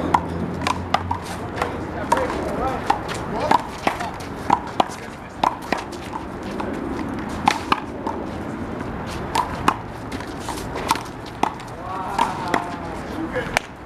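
One-wall handball rally: the big blue rubber ball smacked by hand and hitting the wall and ground, a string of sharp slaps at irregular intervals, with faint voices in the background.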